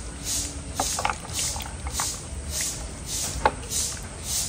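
Wooden chopsticks stirring strips of pomelo peel in a metal basin of ice water. Scattered sharp clicks come from the chopsticks and ice cubes knocking the metal, over regular swishes of water.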